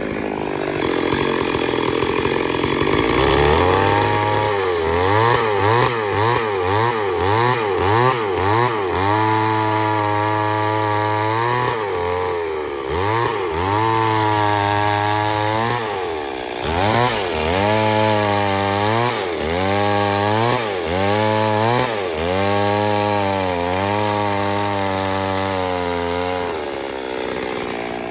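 Chainsaw engine cutting wood, its pitch rising and falling over and over as the throttle is worked and the chain bites: quick short revs at first, then longer held pulls.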